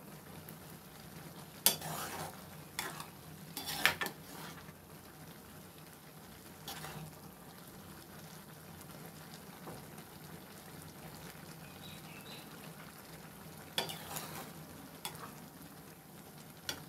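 A steel spatula stirring and lifting Maggi noodles with scrambled egg in an aluminium kadai over a low sizzle. Now and then it scrapes, and it knocks sharply against the pan, loudest about two, four and fourteen seconds in.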